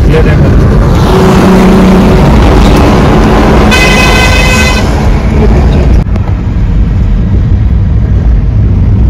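Steady road and engine rumble heard from inside a moving car on a highway. A vehicle horn sounds twice: a lower-pitched honk about a second in that lasts over a second, then a higher, brighter honk near the middle of the stretch.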